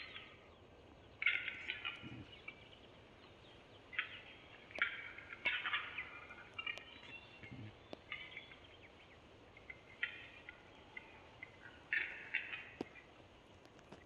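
Male Eurasian capercaillies displaying at a lek: repeated short bursts of rough, hissing, scraping song with sharp dry clicks between them, and two brief low thuds.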